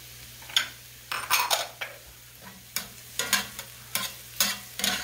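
A utensil scraping and stirring sliced mushrooms, onions and celery around a skillet, roughly two strokes a second from about half a second in, over a faint sizzle of butter and olive oil.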